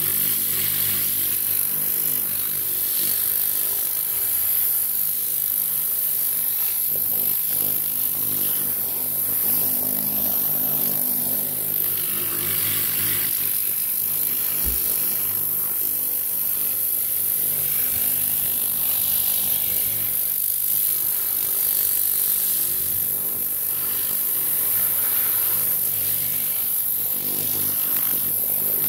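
A Tornador Classic air gun blowing compressed air in a steady hiss, drying water off an engine bay. Under it runs the constant drone of a portable generator's engine, and the air rush swells and fades as the gun is moved around.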